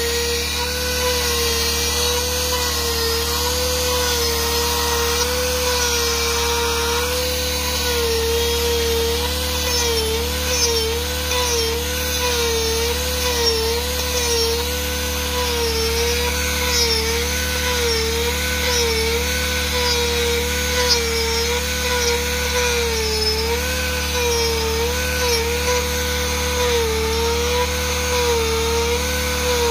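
Dremel rotary tool running at high speed with its bit cutting into wood, a steady whine whose pitch dips and wavers again and again as the bit is pressed in to carve feather detail.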